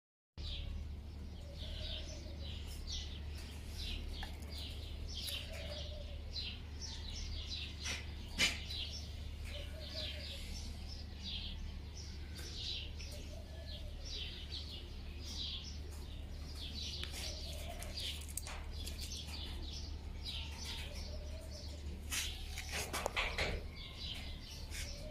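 Small birds chirping rapidly and continuously, with a low cooing call repeating every few seconds, over a steady low hum. A single sharp click about eight seconds in, and a busier spell of sounds near the end.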